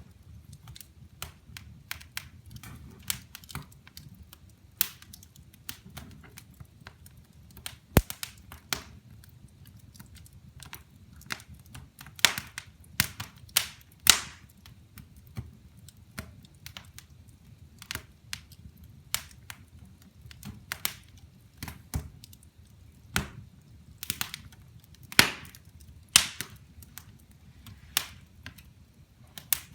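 Wood fire in a fireplace crackling: irregular sharp pops and snaps from the burning logs, a few much louder than the rest, over a low steady rumble of the flames.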